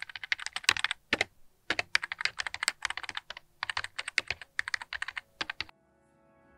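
Keys clicking on a keyboard in quick, irregular runs of typing with short pauses between them. The typing stops near the end, and soft music begins.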